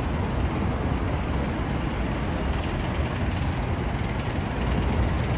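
Steady road traffic noise from passing vehicles, a low, even rumble with no distinct events.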